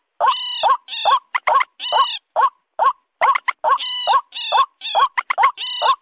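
Bird-lure recording of white-breasted waterhen and common moorhen calls mixed together: a rapid run of short, sharp calls, about three a second, with longer, higher calls in between.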